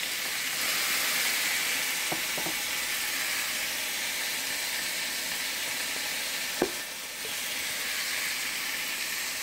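Diced pork sizzling steadily in a very hot nonstick skillet as it is stirred with a wooden spoon, with a few short knocks, the loudest about six and a half seconds in.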